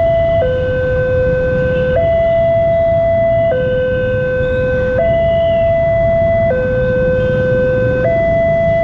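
Railway level-crossing warning siren sounding a slow two-tone alternation, switching between a lower and a higher tone about every second and a half, over a steady low rumble.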